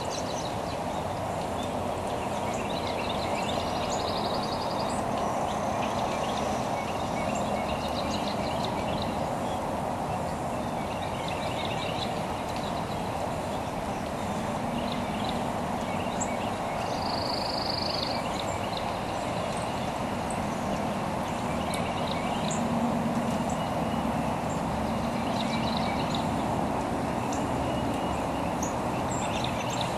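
Birds calling with scattered short chirps and ticks, including one brief high whistle about halfway through, over a steady background hiss.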